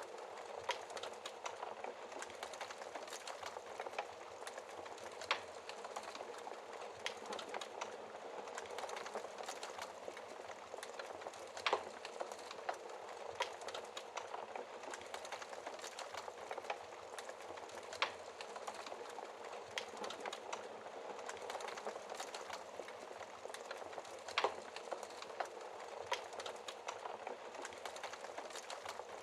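A wood fire burning behind a fireplace's glass door: a steady hiss with irregular sharp pops of the burning wood every few seconds.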